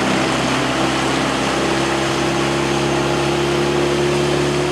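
Dinghy's outboard motor running steadily at towing speed over a constant rushing noise.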